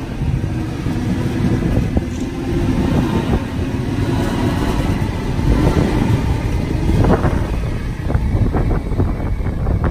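Sydney Trains Waratah double-deck electric train running close past, a loud steady rumble of steel wheels on rail. From about seven seconds in, a run of quick clicks of wheels over rail joints joins it.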